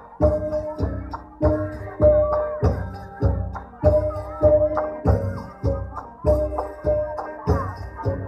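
Traditional Vietnamese folk music for a group dance: a steady beat of heavy percussion strokes, a little under two a second, each leaving a ringing held tone, with a wavering melody over it and a light jingling like a tambourine.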